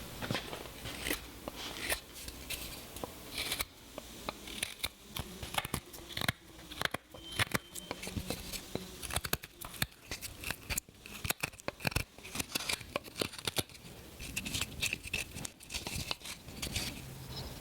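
Hand-made carving knife, ground from an old table saw blade, cutting into wood: irregular short slicing and scraping strokes, some sharper and louder than others.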